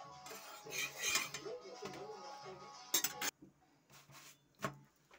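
Metal kitchenware clinking and scraping against a flat griddle (tawa) while a paratha is handled and turned on it. A few sharp clinks stand out, with one more knock near the end.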